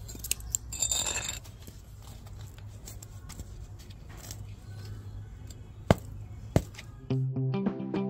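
A metal hand tool working the soil of a plastic flower pot: a scraping rush about a second in, then two sharp taps near six seconds, over a low steady hum. Electronic background music with a steady beat starts near the end.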